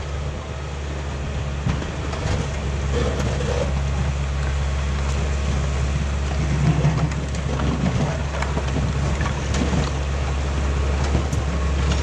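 1988 Caterpillar D4C bulldozer's diesel engine running steadily under load while it pushes a blade full of dirt and stumps, with scattered sharp clanks and cracks over the drone.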